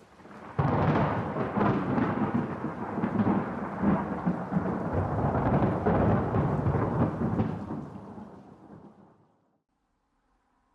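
A thunderclap: a sudden crack about half a second in, then a long rolling rumble with repeated swells that fades away after about eight seconds.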